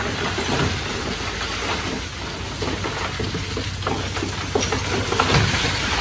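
Komatsu D20P crawler bulldozer's diesel engine running steadily under irregular clanking and clattering from its tracks and the stone it is pushing.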